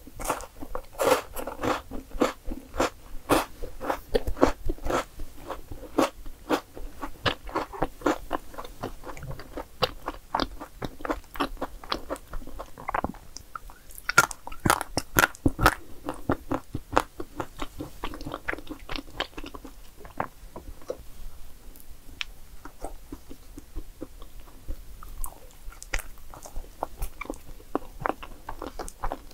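Close-miked eating sounds: chewing and biting into chocolate cake, many short wet clicks of the mouth working, coming thickest in the first few seconds and again around the middle, sparser toward the end.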